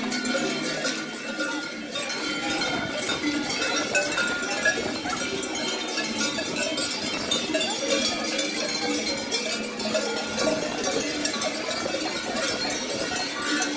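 Many cowbells jangling continuously and unevenly as a procession of children walks with them, rung in the Chalandamarz custom to drive out winter.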